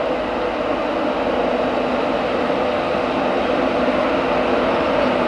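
Class 91 electric locomotive and its coaches running slowly along the platform: a steady rumble of wheels on rail with a steady hum from the locomotive, growing slightly louder as it approaches.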